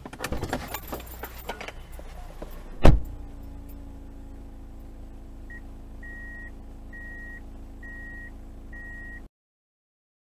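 Rattles and knocks in the Kia Rio's cabin as the car comes to a stop, a single loud thump about three seconds in, then the Kia's 1.5 CRDi diesel engine idling steadily. Near the end a high beep repeats five times, about once a second, before the sound cuts off suddenly.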